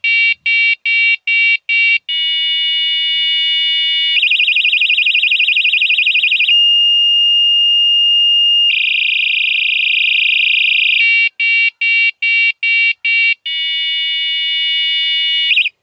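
Fabsports bicycle light's built-in electronic horn stepping through its horn sounds in turn: a run of short beeps about three a second, a steady tone, a fast warble, a single pure whistle-like tone, another fast warble, then the beeps and the steady tone again.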